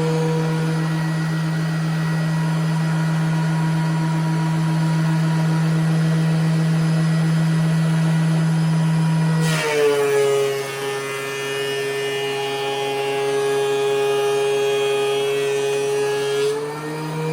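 DeWalt DW735 thickness planer running with a steady hum. About ten seconds in, a cutting board feeds through and the motor's pitch drops under the load as the knives cut, with a rougher cutting noise. After about seven seconds it rises back to free-running speed as the board comes out.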